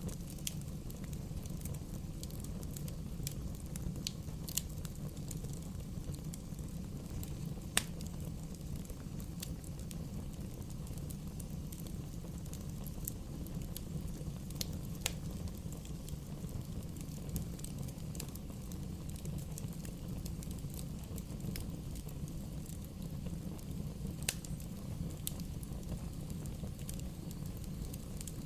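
Bonfire burning: a steady low rumble of flames with scattered sharp crackles and pops from the burning wood, the loudest about eight seconds in.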